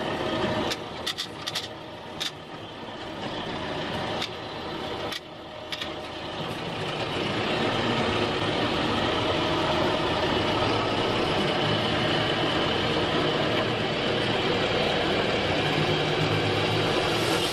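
A vehicle engine running as it drives slowly over rough ground, with a few sharp knocks in the first few seconds. From about six seconds in it grows louder and then runs steadily.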